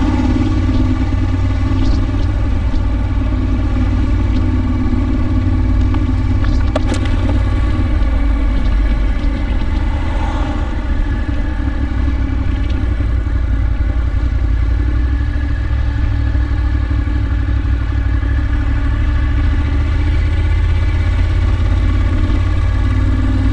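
Ducati Monster R's L-twin engine running at a steady cruising pace, heard from on the bike.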